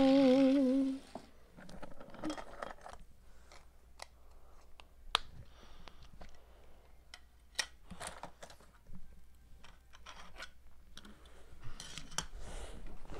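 A child's voice holds a wavering, sing-song sound for about a second, then small plastic toys are handled: scattered light clicks and scrapes as a toy car and LEGO pieces are pushed and set down on a painted wooden sill, with a couple of sharper clicks in the middle.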